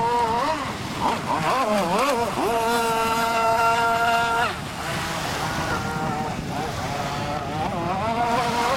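Two-stroke RCMK S520 50.8 cc petrol engine of a radio-controlled gas boat running with the throttle worked up and down, then held at a steady high pitch for about two seconds before dropping off suddenly and carrying on at lower, varying revs.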